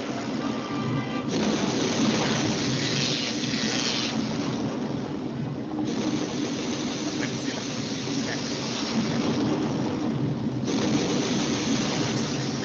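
Soundtrack of a storm-and-lightning video played over a video-call screen share: a loud, dense noise with a steady low rumble, its high hiss cutting out and returning a few times.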